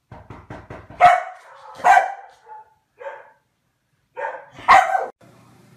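A dog barking, five barks spread over about four seconds, the first, second and last the loudest, after a quick run of light taps.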